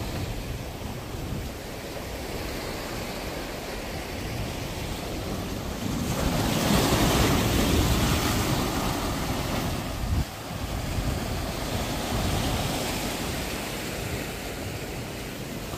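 Surf washing in on a beach, with wind rumbling on the microphone; the wash swells loudest about six to nine seconds in.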